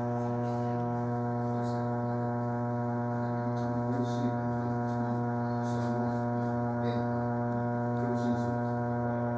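A bathtub's pop-up drain stopper resonating, giving a steady low buzz like a buzzer sounding, with many overtones over it.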